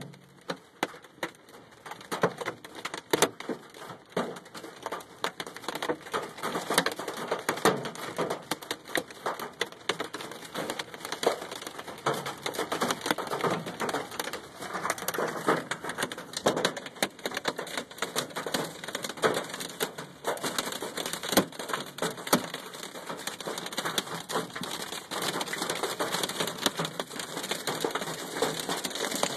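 Golf-ball-size hail beating on a truck, a dense, irregular clatter of hard hits on the metal body and glass. It is sparser for the first couple of seconds, then thickens into a continuous pounding.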